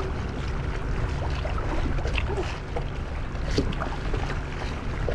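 Strong wind rumbling on the action-camera microphone over choppy sea water lapping against a kayak hull, with a couple of short splashes.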